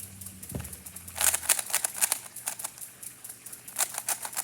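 GAN 356 RX plastic 3x3 speed cube being scrambled by hand: fast, irregular clacking of its layers turning. It comes in quick flurries from about a second in.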